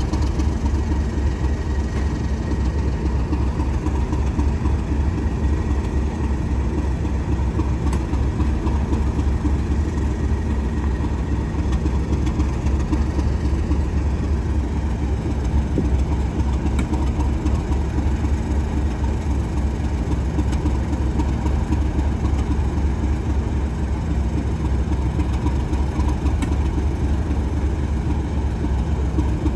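Railway diesel engine running steadily at idle, a low even drone.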